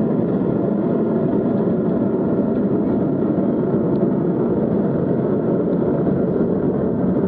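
Distant sound of a Delta IV Heavy rocket's engines during ascent, reaching the viewers as a steady, deep noise with no breaks.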